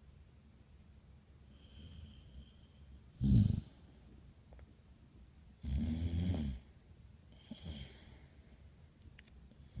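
Heavy snoring. There is a short loud snore about three seconds in and a longer rasping one about six seconds in, with softer breaths between that carry a faint high whistle.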